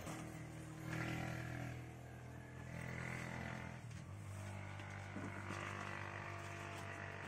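A faint engine running steadily, its pitch shifting about four seconds in.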